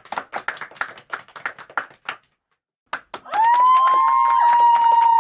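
Applause thinning out to scattered single claps, a brief dead silence, then a crowd cheering again with loud held shouts for the last two seconds.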